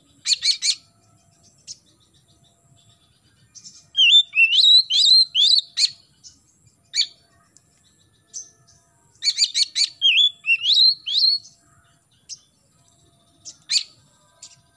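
Oriental magpie-robin singing in separate phrases with pauses between: a burst of harsh, scratchy notes, then runs of clear whistled notes gliding up and down, twice, with single short notes between.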